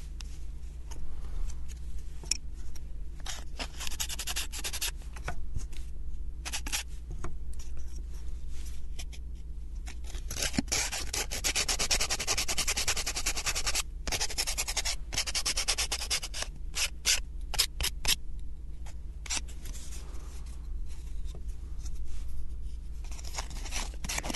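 Sandpaper rubbed back and forth along the edges of thin wooden 3D-puzzle pieces to smooth them. The strokes come in short runs with brief pauses, with a longer, faster run of steady strokes in the middle.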